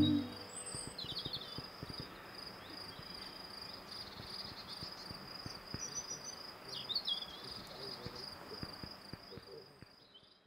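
Outdoor nature ambience: a steady, high insect trill with a few short chirps about a second in and again around seven seconds. It fades out near the end.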